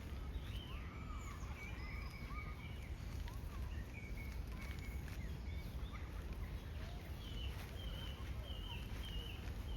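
Several birds chirping and calling, in short chirps and whistles throughout, over a steady low rumble.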